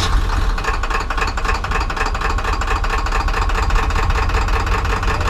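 A truck engine idling steadily just after starting, with a fast, even clatter over a low rumble. The driver says it starts without trouble but has no power and thinks the turbo is gone.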